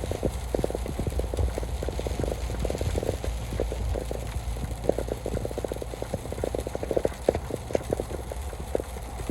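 Heavy rain drumming on a moving car, with many irregular drops tapping on the body and a steady low rumble of the road and engine underneath.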